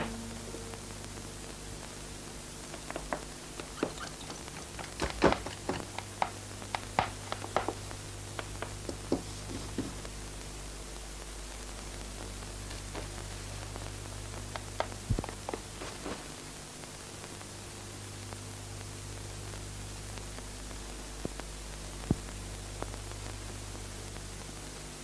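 Steady hiss and low hum of an old film soundtrack, with scattered knocks and clicks of someone moving about a bedroom: footsteps, wardrobe doors and things being handled. The knocks come in a cluster early on and then a few at a time.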